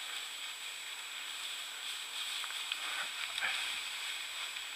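Steady hiss with a few faint crackles of dry grass and brush, a little past the middle, as someone walks through tall dry cover.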